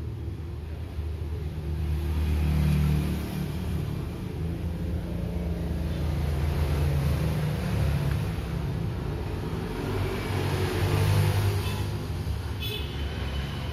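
Low engine rumble of passing motor vehicles, rising and falling, loudest about three seconds in and again near eleven seconds. A brief high click comes near the end.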